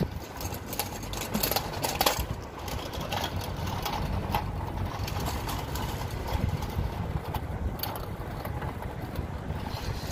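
City street noise: a steady rumble of traffic with scattered clicks and knocks throughout.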